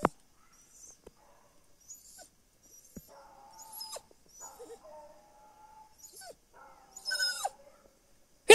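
Hunting hounds baying and yelping out of sight in the brush: a run of faint drawn-out cries, one stronger about seven seconds in and a loud one right at the end.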